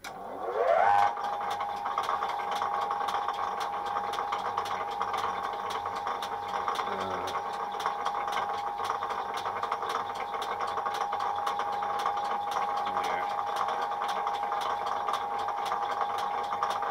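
Cutting tool chattering against a cast iron brake disc spinning on an old South Bend 14.5-inch lathe: a steady, high-pitched squeal that rises in pitch as the cut begins, with a regular tick, and stops near the end. The chatter comes from working at the limits of the machine with the tool reaching far out, and it leaves a really bad finish.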